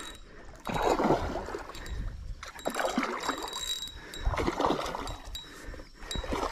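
Water splashing in three short bursts, about one, three and four and a half seconds in.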